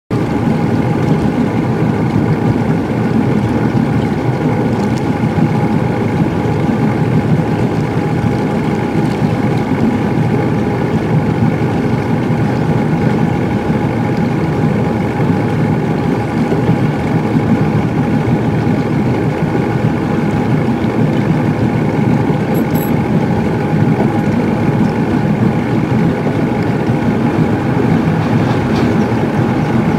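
Boat motor running steadily: a constant, unchanging hum with a few steady whining tones over it.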